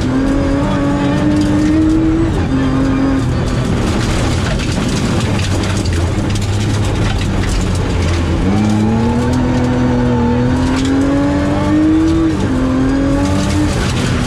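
Rally car's engine heard from inside the cabin, pulling hard with an upshift right at the start. It eases off in the middle through a corner, under a wash of gravel and tyre noise, then climbs through the revs again with another upshift near the end.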